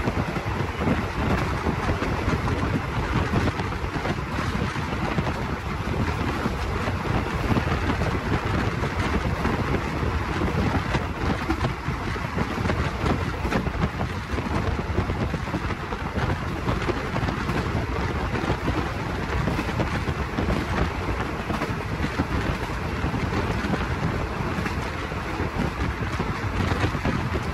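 Passenger train running steadily, heard from aboard: a constant rumble of the train mixed with wind rushing over the microphone.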